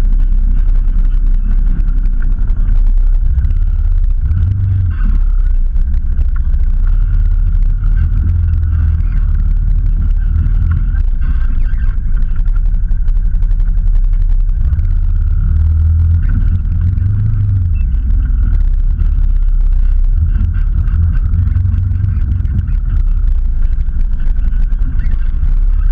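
Off-road vehicle engine running at low revs, a steady low rumble that swells briefly a few times as the throttle is blipped.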